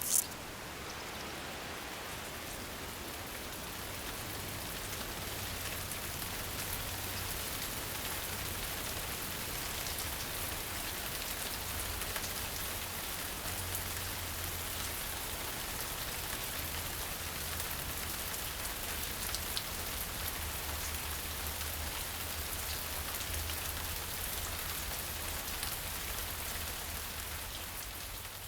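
Steady rain falling, an even hiss of drops that swells a little after a few seconds and begins to fade near the end.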